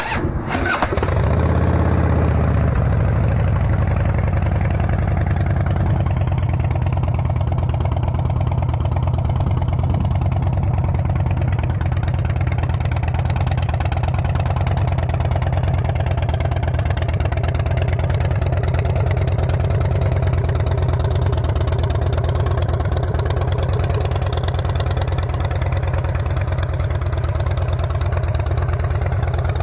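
2007 Harley-Davidson Dyna Wide Glide's 96-cubic-inch V-twin, breathing through Vance & Hines Shortshots slash-cut mufflers, catching about a second in and then idling steadily.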